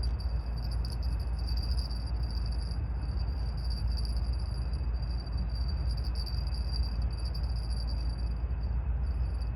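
Insects trilling in a steady, high-pitched chorus over a constant low rumble.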